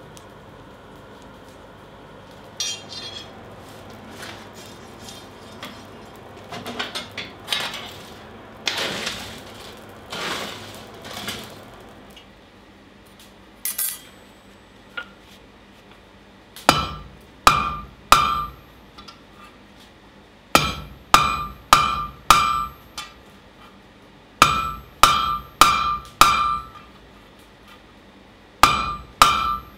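A blacksmith's hand hammer strikes red-hot 20 × 5 mm flat steel bar over the anvil horn in bursts of four to six quick blows with short pauses, each blow ringing briefly. In the first half there are only softer, irregular clinks and scraping.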